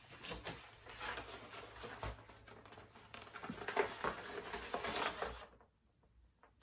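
Packaging rustling and crinkling as items are handled and taken out of a box, a dense run of small crackles that stops about five and a half seconds in.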